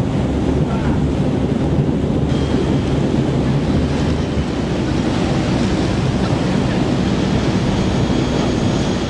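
Amphibious car running on water: heavy wind buffeting the microphone and rushing water over a steady low engine rumble.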